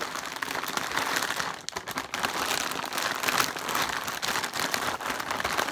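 Plastic Takis chip bags crinkling steadily as they are shuffled and mixed together, easing off briefly near the two-second mark.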